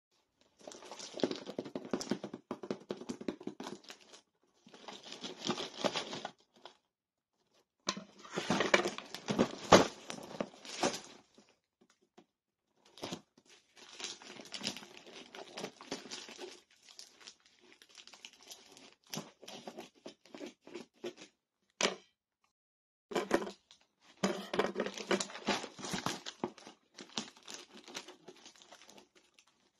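Plastic mailer bag crinkling and tearing as it is handled and cut open with scissors, in irregular bursts of a few seconds with short pauses, and a few sharp clicks.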